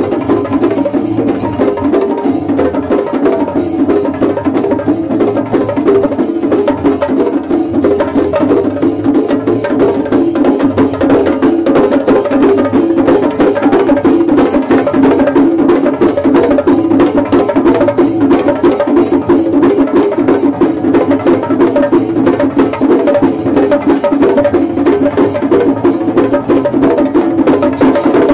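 Traditional percussion ensemble drumming fast and densely, an unbroken stream of rapid strokes at an even, loud level.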